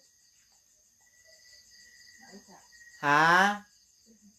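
Insects, crickets by their sound, chirring steadily in a fast, even pulse. About three seconds in, a person cuts across it with a short, rising, questioning 'Ha?'.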